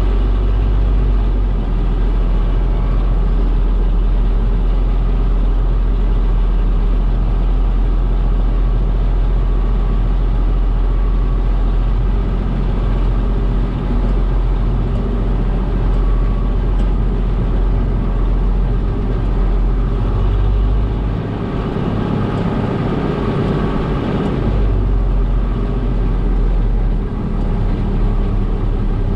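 Farm machinery's engine running steadily, a loud deep drone; its lowest rumble falls away for a few seconds about three quarters of the way through.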